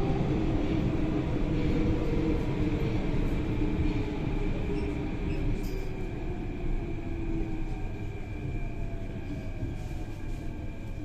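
Athens Metro train heard from inside the carriage, slowing as it pulls into a station: a steady rumble of wheels on rail with a motor whine falling slowly in pitch, the whole sound growing quieter.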